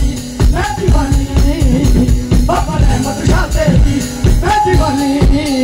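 Live devotional Punjabi song played loud through a stage PA: a singer's amplified voice bending and holding long notes over a steady drum beat with shaker-like percussion.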